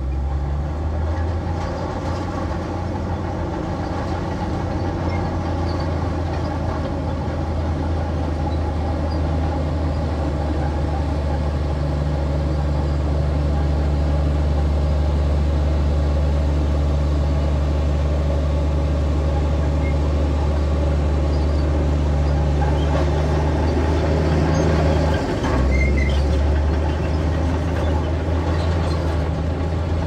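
Bulldozer's diesel engine running steadily under load, a deep continuous drone, with a brief shift in its note near the end.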